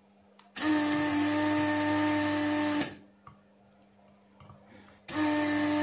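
Electric desoldering gun's vacuum pump running, a steady motor hum with the hiss of sucked air. It runs for about two seconds, stops, then starts again near the end, pulling molten solder off the pins of the RCD snubber diode being removed from the welder's power-supply board.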